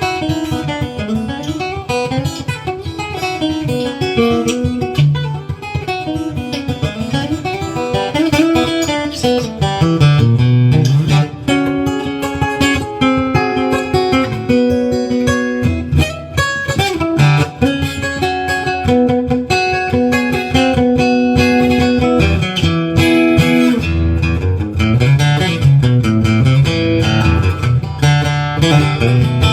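Washburn acoustic guitar played through a newly installed K&K Pure Mini bridge-plate pickup: single-note picked runs going up and down, then held and strummed chords, ringing clearly.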